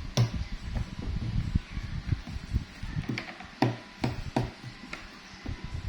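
Scattered sharp taps and knocks with low thuds between them, the kind made while handling and pressing toy slime and its tools on a hard surface.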